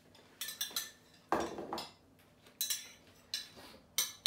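Metal spoon clinking and scraping against a ceramic bowl as chopped tomato is spooned out, several short sharp clinks with a longer, heavier sound about a second and a half in.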